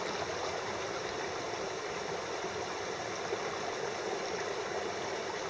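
Small stream running steadily, an even rush of water.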